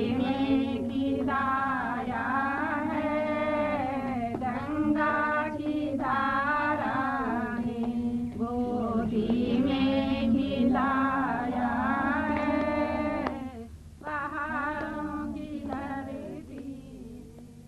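A chant sung to music, pausing briefly about three-quarters of the way through and then fading out.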